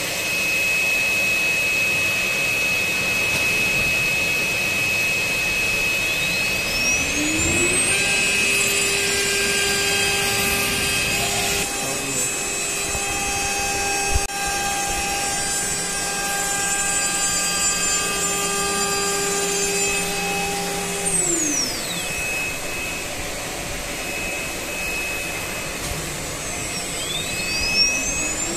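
Multi-spindle CNC nesting router machining MDF: a steady high spindle whine over a rushing cutting noise. A spindle whine rises in pitch about a quarter of the way in and falls away about three quarters through, and another rises near the end as the machine switches between its tool spindles.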